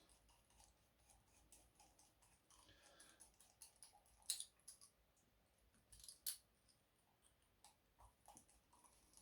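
Faint, scattered clicks of a screwdriver and small metal engine parts being handled during disassembly, with two sharper clicks about four and six seconds in.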